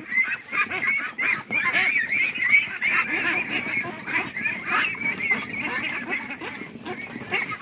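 A crowded flock of white domestic ducks calling all at once, many short overlapping calls with no break, the flock stirred up by a handler catching birds among them.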